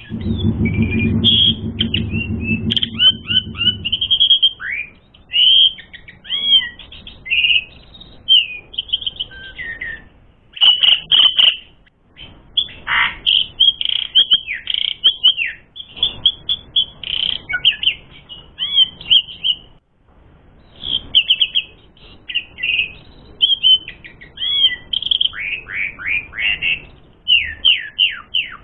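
Asian pied starling (jalak suren) singing a long, varied run of loud whistles, down-slurred chirps and rapid trills, broken by two short pauses. A low buzzing hum lies beneath the song for the first few seconds.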